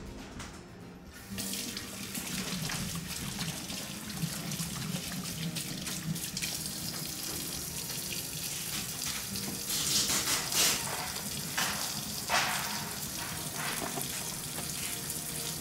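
Kitchen sink faucet running, with hands being rinsed under the stream. The water starts about a second in and runs steadily, with louder splashes about ten and twelve seconds in.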